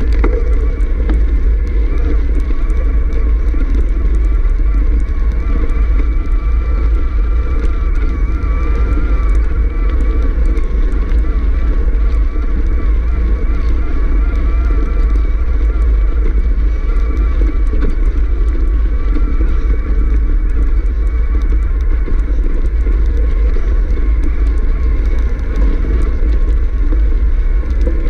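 Wind buffeting the microphone and the rumble of a mountain bike rolling over a rough dirt trail, steady throughout, with a faint wavering whine above it.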